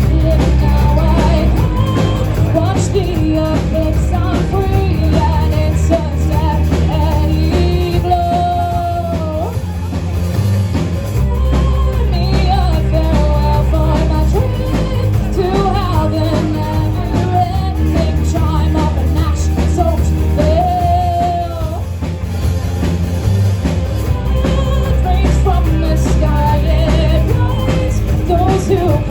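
Live rock band playing an original song: bass, drum kit and electric guitar, with a lead vocal singing the melody over them.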